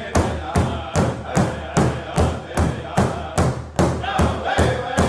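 Big powwow drum struck in unison by a drum group with padded drumsticks, a steady beat of about two and a half strikes a second, with the men singing together over it.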